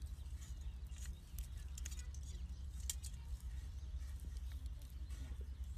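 Steady low wind rumble on the microphone, with scattered light clicks and ticks from cooking over a small wood fire, mostly in the first three seconds.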